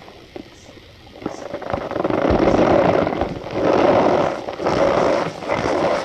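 Compressed cornstarch cups and balls being crushed by hand: a dense, squeaky crunching. After a few faint clicks it starts about a second in and comes in several long squeezes.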